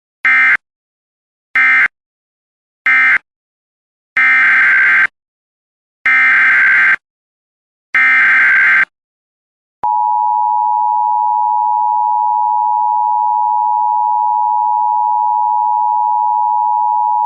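Emergency Alert System tones: three short screeching data bursts of the end-of-message code, then three longer SAME header data bursts a second or so apart. About ten seconds in, the steady two-tone attention signal starts and holds for about eight seconds.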